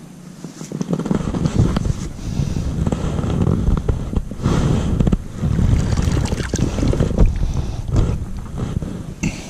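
Wind buffeting the microphone, with a hooked bass splashing at the surface beside the kayak and a few sharp knocks as the rod and landing net are handled.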